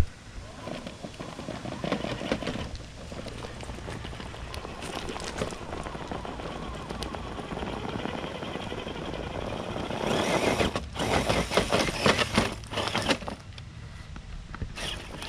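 Traxxas TRX-4 RC crawler scrabbling over loose rocks, its tires slipping while rocks crunch and clatter in a run of crackling clicks. The clatter grows louder and busier about ten seconds in.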